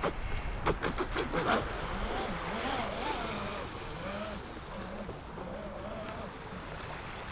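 Pro Boat Zelos 36 radio-controlled catamaran running out on the water, its electric motor whine rising and falling in pitch with the throttle, over wind and waves. A few short sharp noises come in the first second and a half.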